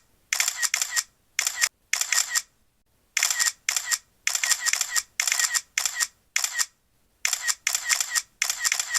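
Apple iPhone camera shutter sound clicking in rapid bursts of two to four shots, with short pauses between bursts, like paparazzi cameras firing.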